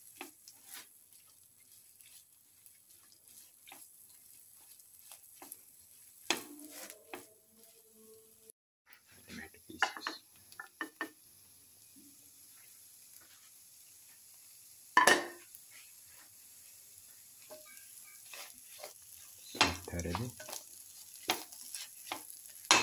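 A spatula stirring and scraping spiced clam meat and tomato around a pan over a faint sizzle, with irregular knocks of the spatula on the pan; the loudest knock comes about fifteen seconds in.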